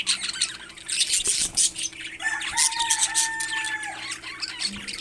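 Parrots chirping and squawking in many quick, high calls, with one drawn-out steady call about two seconds in that lasts nearly two seconds.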